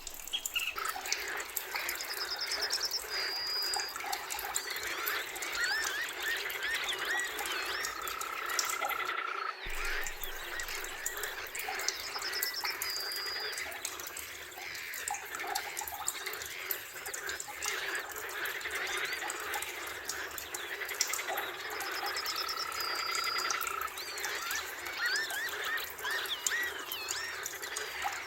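Dense chorus of forest birds singing and calling, many overlapping whistles, trills and chirps over a steady hiss, with a few phrases recurring several times.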